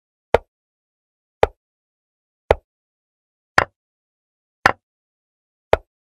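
Chess-board move sound effect: a short click for each move played, six of them evenly spaced about once a second, with silence between.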